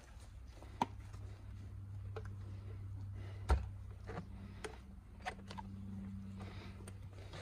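Microfiber cloth rubbing over a plastic side mirror housing, with a few light clicks and one louder knock about three and a half seconds in as the housing is handled, over a steady low hum.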